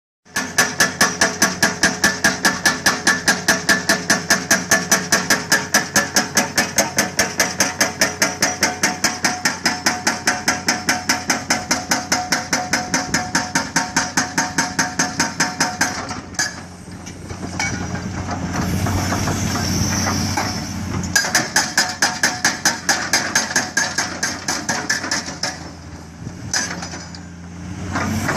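Montabert hydraulic breaker on an excavator hammering rock: a rapid, steady train of blows, about five a second. About halfway through it stops for several seconds, leaving the excavator's engine running, then hammers again in shorter bursts.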